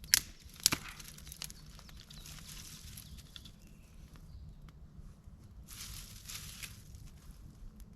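Two sharp snaps of dry twigs in the first second, then rustling of twigs and brush about six seconds in, as a campfire is built up with dry spruce wood.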